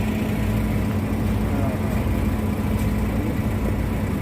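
Heavy diesel engine running steadily at a low, even hum.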